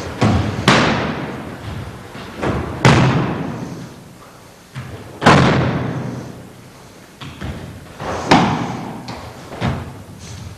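Bodies landing hard on the floor in martial-arts break falls and throws: a series of heavy thuds a second or two apart, each trailing off in echo.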